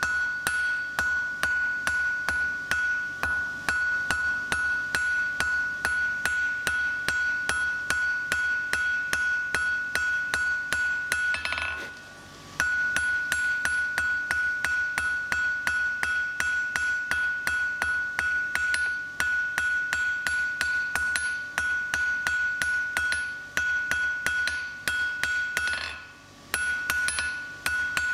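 Blacksmith's hand hammer striking a red-hot mild steel bar on a steel anvil in a steady run of blows, about three a second, drawing the bar out to a taper. Each blow sets the anvil ringing at one high pitch. The blows stop for a moment twice, once near the middle and once near the end.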